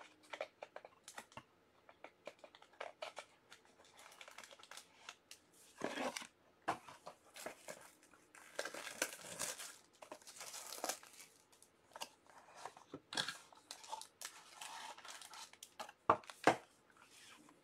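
Plastic wrapping being torn and crumpled while trading card boxes are opened by hand, in repeated rustling bursts with small clicks and taps between them.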